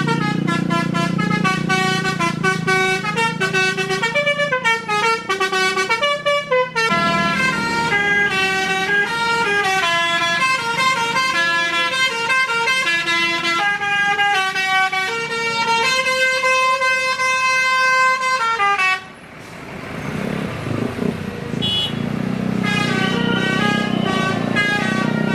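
Basuri telolet bus horn playing a tune: several horn tones sounding together, stepping up and down in pitch note by note. About nineteen seconds in it cuts off and engine and road noise take over, then the horn tune starts again near the end.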